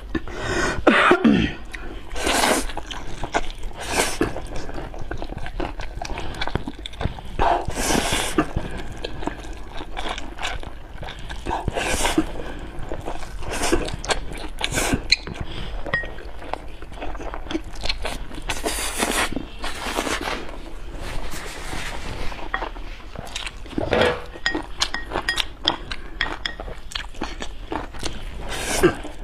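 Close-miked eating: a person chewing and slurping noodles, with wet smacking and crisp bites coming in irregular short bursts.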